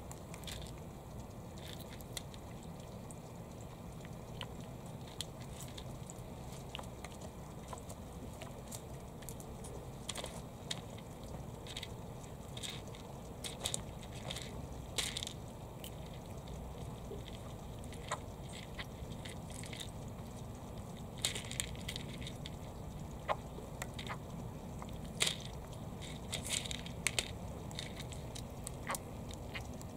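Japanese pond turtles biting and crunching food from a plastic feeding dish: irregular sharp clicks and crunches, busier about halfway through and again near the end, over a steady low hum.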